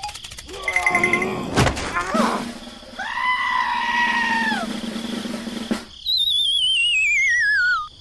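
Cartoon sound effects: squeaky, high-pitched character voices, a sharp knock about a second and a half in, then near the end a long descending, wavering whistle.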